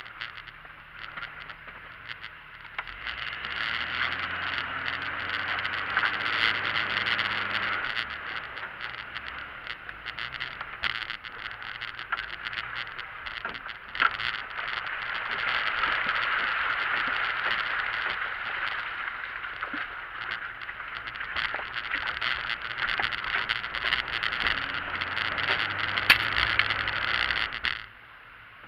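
Jeep crawling over a snowy, rocky trail: a steady rushing noise from the tyres and bodywork with scattered knocks, and the engine note rising briefly twice under load. The noise drops away suddenly near the end.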